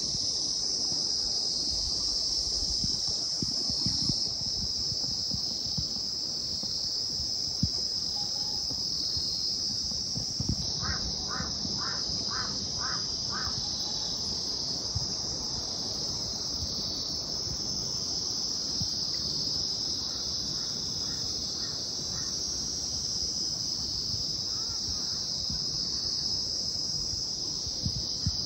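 Steady, high-pitched insect chorus droning without a break. About eleven seconds in a bird gives a quick run of six notes, with a fainter run near twenty seconds.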